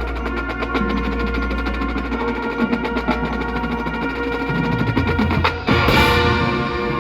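Marching band playing: held brass chords over steady, fast percussion ticking, then a brief drop and a loud full-band entry about five and a half seconds in.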